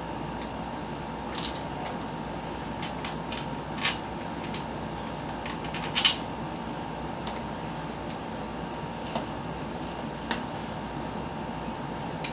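Scattered light clicks and knocks of plastic electric-fan parts being handled and screwed together by hand, over a steady background hum.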